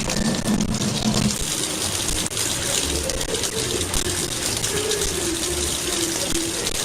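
Steady rush of running water, with a faint wavering pitched sound underneath partway through.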